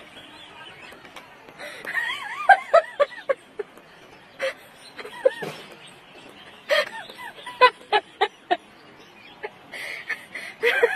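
Bursts of laughter in short runs of repeated syllables, with high sounds that rise and fall in pitch among them. The bursts come about two seconds in, again in the middle, and near the end.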